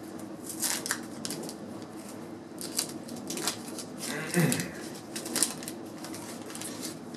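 Wax-paper card pack wrapper being torn open and the stack of trading cards pulled out: irregular crisp crinkling and rustling, with a short falling low sound partway through.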